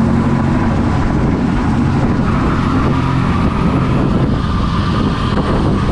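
Loud, steady engine noise: a constant low hum with a faint whine over it that rises slightly a couple of seconds in.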